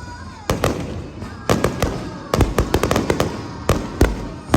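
Aerial fireworks bursting: a rapid, irregular run of loud bangs with crackling between them, growing denser in the second half.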